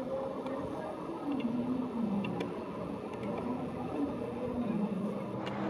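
Electric suburban train running along the elevated track, heard from on board: a steady rumble with a slowly wavering tone and a few faint clicks.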